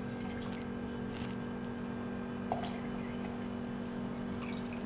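Water pouring in a stream into a glass blender jar over cherries, with one light tap about halfway through.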